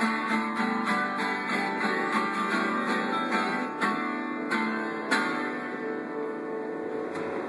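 Twelve-string acoustic guitar strummed in chords, the strings ringing on between strokes, with a few harder strums around the middle.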